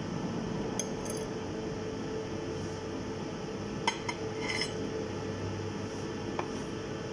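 Cutlery and dishes clinking, a few scattered light taps over a steady background hum.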